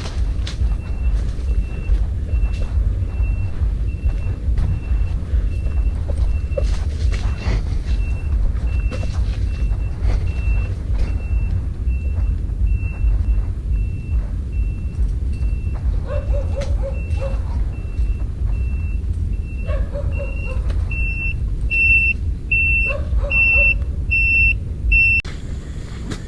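An electronic beeper giving a short high beep about every two-thirds of a second, much louder for the last few seconds, over a steady low rumble.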